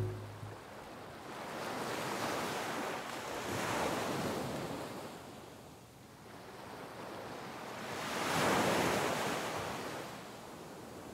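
Ocean surf breaking against a rocky shore, a steady rush that swells and fades in slow surges, the biggest one about three-quarters of the way in.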